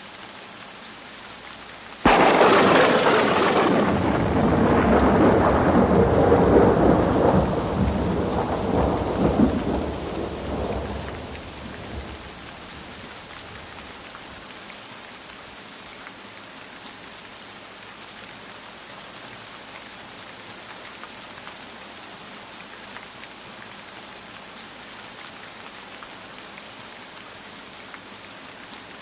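Steady rain falling, with a sudden clap of thunder about two seconds in that rolls on for about ten seconds and fades back into the rain.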